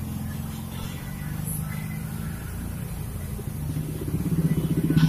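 Motor scooters passing on the road, their small engines running steadily. One grows louder as it passes close near the end.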